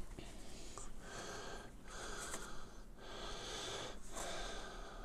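Faint breathing through the nose close to the microphone, a few breaths in and out about a second each, with light handling of a small paper manual as it is opened.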